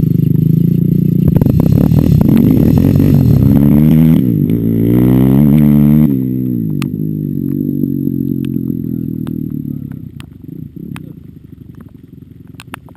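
Off-road vehicle engine revving hard in repeated bursts, its pitch sweeping up and down. About six seconds in it eases off to a lower, steadier run, then fades to a faint low rumble near the end.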